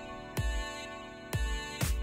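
Electronic background music: a deep kick drum about once a second over sustained chords.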